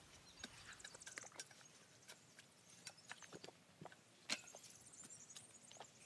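Garden rake scratching through wood-chip mulch in faint, irregular strokes, with one sharper scrape about four seconds in.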